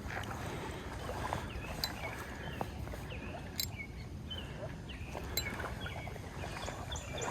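Shallow river water sloshing and splashing, with a few sharp clicks scattered through it.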